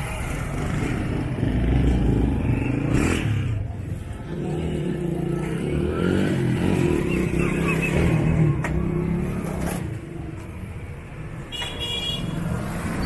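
Street traffic: a motor vehicle engine, likely a motorcycle, running close by with a steady drone, and a short high horn beep near the end.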